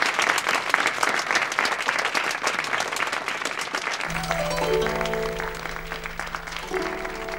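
Crowd applauding, fading over the first few seconds; about four seconds in, music starts with a low held note under quick runs of plucked string notes.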